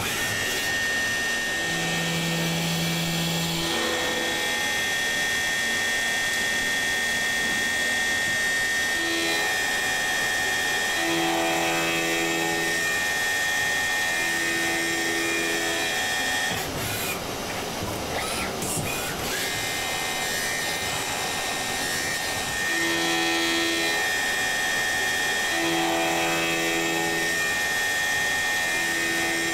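Miyano BNA-42SY CNC lathe milling a turned part with a live-tool end mill on its Y axis. A steady high spindle whine runs through it and drops out for a few seconds in the middle, while lower motor hums switch on and off in stretches of one to two seconds as the axes move.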